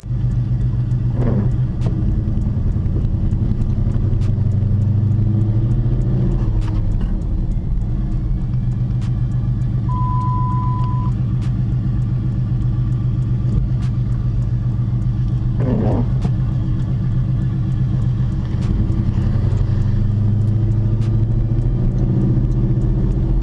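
A 2006 Dodge Charger's 5.7-litre Hemi V8 running while the car cruises, a steady low drone heard from inside the cabin. A short, steady beep sounds once, about ten seconds in.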